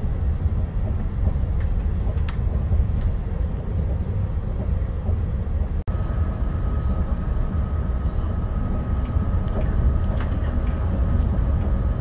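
Steady low rumble of a moving train heard from inside the carriage, with a few faint clicks; about halfway through, a faint steady whine joins it.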